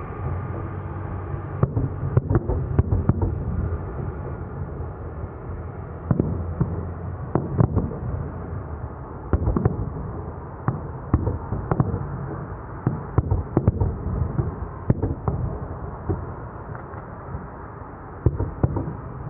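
Fireworks display going off: irregular sharp bangs, some in quick clusters, over a continuous low rumble of booms.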